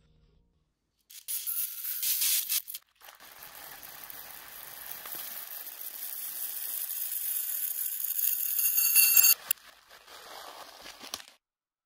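Dry mung beans pouring from a plastic bag into a stainless steel measuring cup, a steady rattling hiss. A short loud burst comes about a second in; then a longer pour grows louder for several seconds and stops suddenly, followed by a few fainter rattles.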